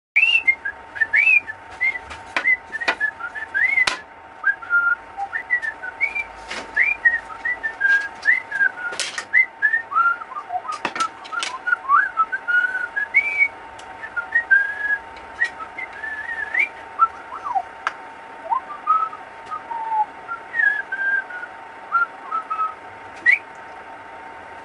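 Quick, short whistled chirps and little gliding trills throughout, over a faint steady tone, with scattered sharp clicks and taps as plastic utensils are set down on the table saw top.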